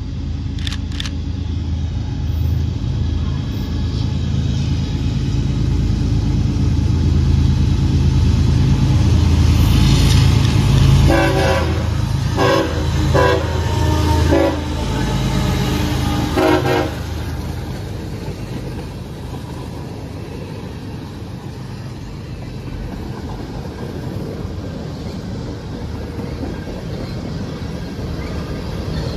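Diesel freight locomotive approaching and passing close by, its engine rumble building, with several blasts of its horn about halfway through. Then the freight cars rolling past on the rails.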